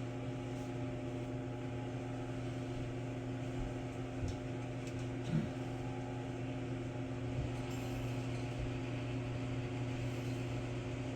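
Steady mechanical hum of a running motor, holding one even pitch with no change throughout.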